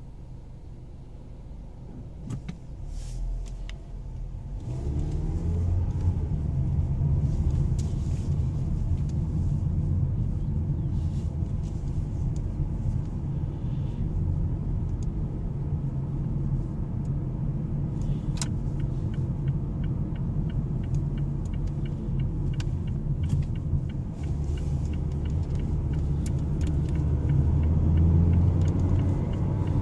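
Mazda 6 sedan heard from inside the cabin as it pulls away: engine and road rumble rise from near quiet with climbing engine pitch about four to five seconds in, settle to a steady cruise, then climb again near the end. A light, regular ticking comes in past the halfway point.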